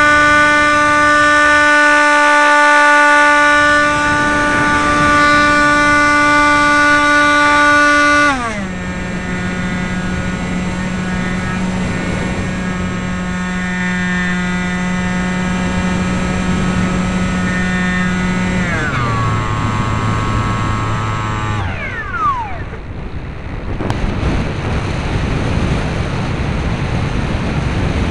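Electric motor and 5x5 propeller of a Bixler RC plane whining at high throttle, stepping down in pitch twice as the throttle is eased back, then winding down and cutting out a little over 20 seconds in. After that only wind rushing over the microphone as the plane glides.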